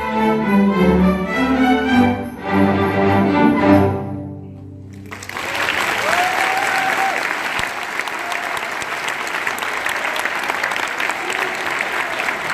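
A student string orchestra of violins and cellos plays the closing bars of a piece, ending about four seconds in. After a short pause the audience breaks into steady applause.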